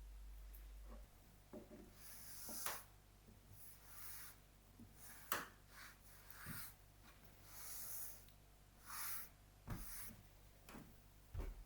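A series of short rubbing or scraping strokes, about one a second, with a few light knocks among them.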